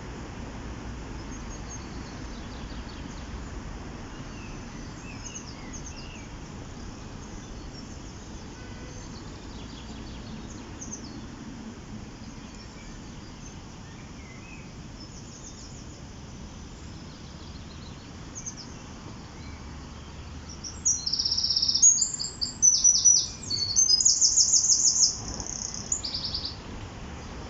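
A small bird sings close by near the end: several loud bursts of rapid, high trilled notes. Before that there are faint distant chirps, over a steady rushing hiss from the river.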